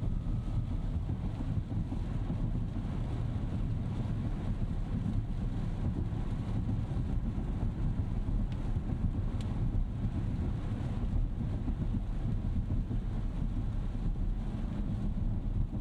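Steady low road and tyre rumble of a 2025 Rolls-Royce Ghost Series II driving on a rain-wet road, heard inside the cabin, with a couple of faint ticks partway through.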